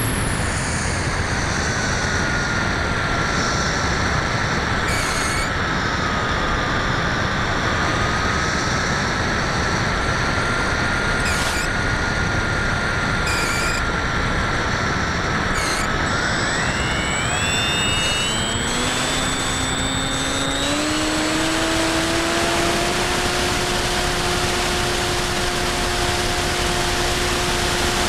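Onboard audio from a Bixler 2 RC plane in flight: steady wind rush over the camera microphone with the whine of its electric motor and propeller. The whine climbs steeply in pitch about sixteen seconds in, and lower steady tones join a couple of seconds later.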